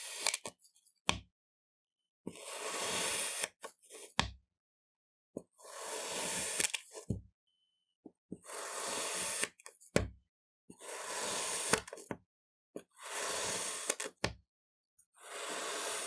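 A knife slicing repeatedly through packed crunchy kinetic sand: a grainy crunch of about a second for each cut, about one cut every two seconds, each followed by a few short sharp knocks.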